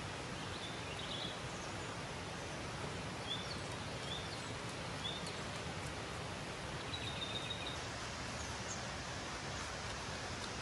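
Steady outdoor forest background noise, with short, high bird chirps several times, spaced a second or two apart.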